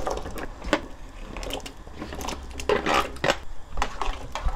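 Peeled taro pieces tipped from a plastic bowl into a pot of boiling salted water and stirred with a spoon, to blanch them. There are irregular knocks and clatter against the pot, thickest about three seconds in.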